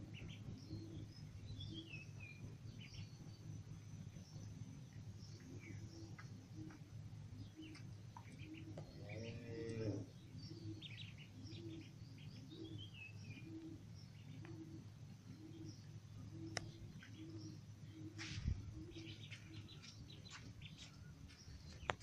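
Ducklings peeping: many short high chirps, some in quick falling runs, over a steady low hum. Through the middle there is a regular low pulse about twice a second, and a louder, lower call about nine seconds in.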